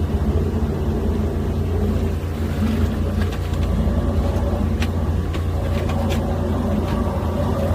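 High-pressure drain jetter running steadily, its engine and pump a low drone, with several short sharp ticks in the middle.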